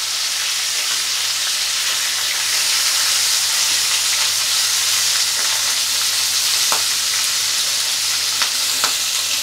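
Stinging catfish (singhi) pieces sizzling and spattering steadily in hot oil in a kadai on high flame, with a few light touches of a spatula as the pieces are turned.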